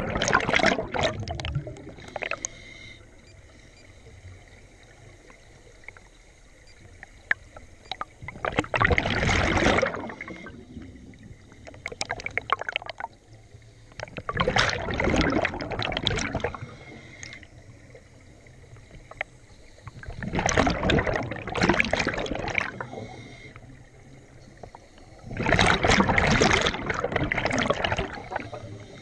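Scuba regulator exhaust bubbling on each exhalation of the diver carrying the camera underwater: five loud bubbly bursts about every five to six seconds, with a quieter hiss between breaths.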